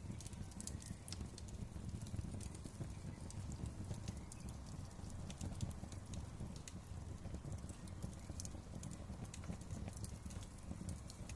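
Wood fire crackling in a fireplace: irregular sharp crackles and pops scattered over a steady low rumble of burning.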